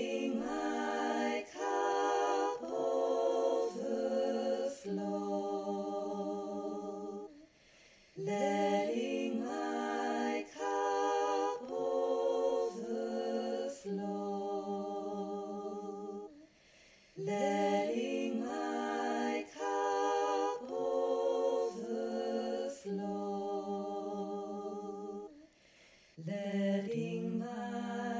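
Unaccompanied female voice singing in harmony, a short phrase repeated about every eight seconds, each ending on a long held note, with a brief breath between phrases.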